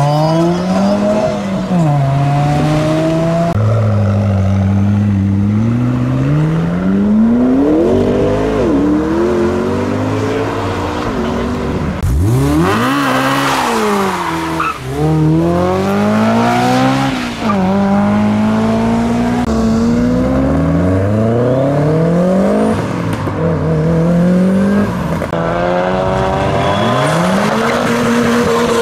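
A succession of modified cars accelerating away, engines revving up through the gears, their pitch climbing and dropping again and again. A harsher, noisier burst comes about halfway through.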